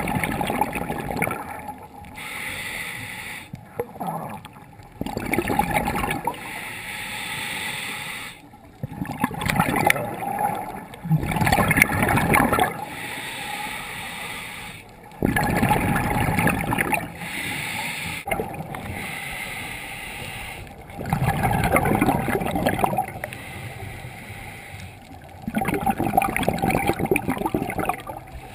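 Scuba regulator breathing heard underwater: every few seconds a loud burst of bubbling and gurgling as a diver exhales, with quieter stretches between the breaths.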